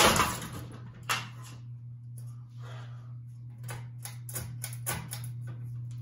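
Ceiling fan motor humming steadily. A hard knock at the start and another about a second in, then a quick run of sharp clicks and knocks near the end.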